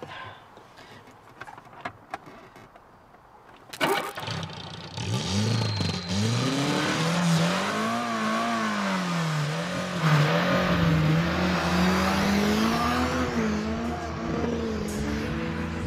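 A few light clicks, then a sharp knock about four seconds in. A motor vehicle's engine then starts and revs up and down repeatedly.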